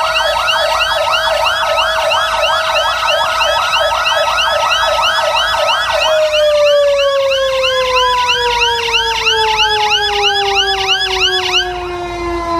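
Fire truck sirens sounding together: several fast yelping sirens, about three sweeps a second each, overlap a steady wailing siren tone. About halfway through the steady siren starts winding down, its pitch sliding slowly lower, and near the end the yelping cuts off, leaving only the falling wail.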